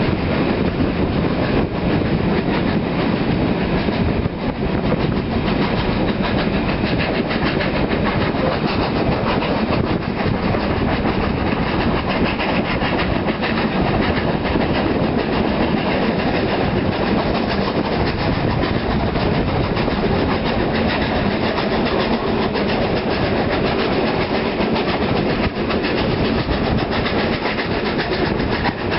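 Three steam locomotives, NSW 32, 35 and 36 class 4-6-0s, working hard together at the head of a train: a continuous, rapid, overlapping chuffing from their exhausts, heard from the train with the wheels clattering over the rail joints.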